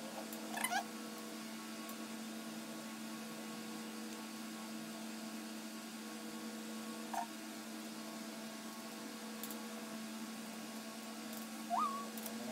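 Toy poodle giving short rising whines three times, the last near the end the loudest, over a steady low electrical hum.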